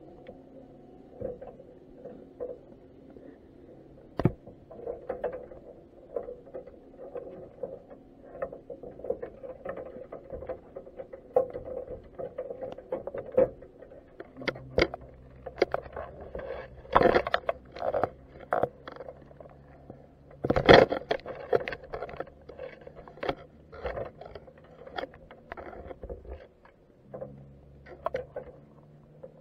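Underwater sound picked up by a camera sitting in a crab pot: irregular sharp clicks and crackles, with a few louder knocks in the middle. A low steady hum, typical of a boat motor heard through the water, comes in about halfway, drops out briefly and returns near the end.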